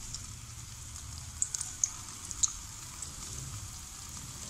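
Potato seekh kababs shallow-frying in hot oil in a karahi: a steady sizzle with scattered pops and crackles, a few sharper ones between about one and a half and two and a half seconds in.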